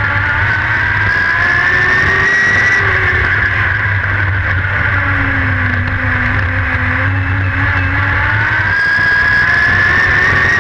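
Dirt-track race car engine heard from inside the cockpit, running hard at speed. Its pitch climbs through the first few seconds, drops back and holds lower through the middle as the car goes through a turn, then climbs again near the end on the next straight.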